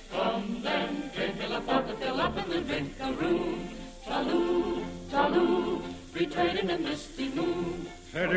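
Choir singing an operetta chorus in phrases that swell and fall, on an old broadcast recording with a muffled top end.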